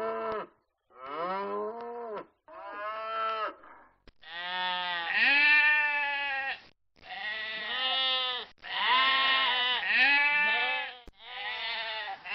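Flock of sheep bleating: a few separate quavering bleats, then many overlapping bleats from about four seconds in.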